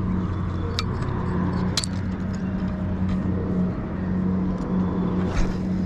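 Steady low mechanical drone like an idling engine, with a few light clicks over it.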